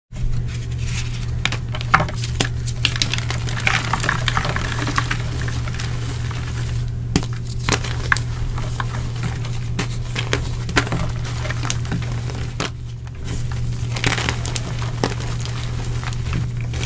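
Blocks of dyed gym chalk breaking and being crushed by hand into powder: dense, irregular crunching and crackling with sharp snaps as pieces break off, easing briefly about thirteen seconds in. A steady low hum runs underneath.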